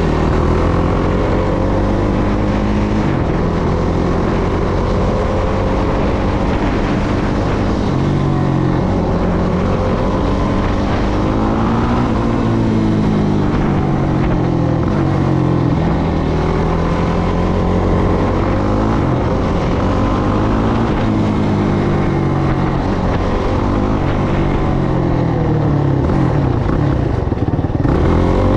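Yamaha YFZ450R quad's single-cylinder four-stroke engine running under way, its pitch climbing and dropping over and over as the rider accelerates, shifts and eases off.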